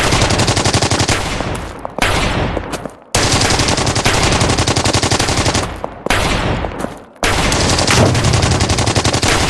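Automatic machine-gun fire, a sound effect: several long, rapid bursts one after another, each cutting off abruptly before the next begins.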